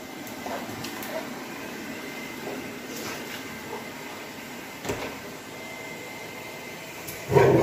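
Robot vacuum cleaner running with a steady whirr and a faint high whine, a sharp click about five seconds in. A loud dog bark near the end.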